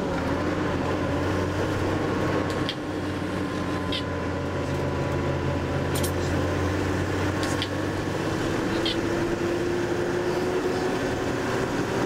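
Tour bus engine running while the bus drives along a narrow road, heard from inside the cabin, its pitch rising slowly in the second half. Short, light clicks come every second or two.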